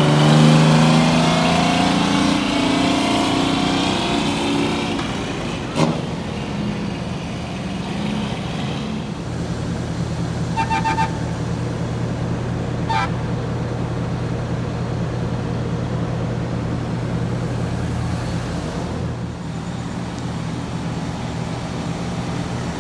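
Diesel semi-truck engines: one truck pulls away with its engine note falling and fading over the first few seconds, then another truck's engine gives a steady low drone. A few brief, faint horn toots come around the middle.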